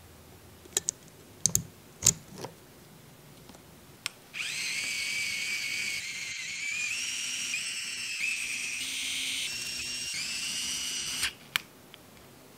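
A few sharp clicks of small metal parts being set in place on the mini engine's aluminium block. Then an electric screwdriver whirs for about seven seconds, its pitch stepping up and down several times as it drives screws. A couple more clicks follow as it stops.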